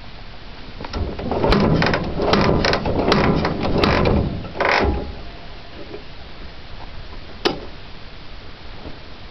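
K-750 sidecar motorcycle being kick-started: about five hard strokes of the kickstart lever turn the engine over with a rough clatter, but it does not catch. A single sharp click follows a few seconds later.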